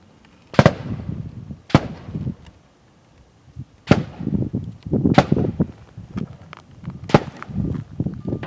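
Five 9mm pistol shots from a Springfield Armory XDm 5.25, fired at uneven intervals over about seven seconds. Each shot is a sharp crack followed by a low rumble.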